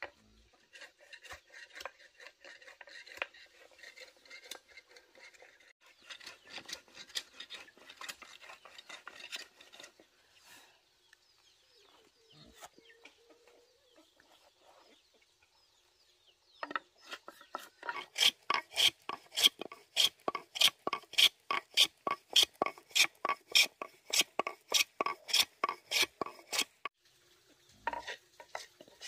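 A hand tool scraping across a wooden block. The strokes are irregular at first, fade for a few seconds, then settle into steady, louder back-and-forth strokes of about two a second with a slight ringing. They pause briefly and start again near the end.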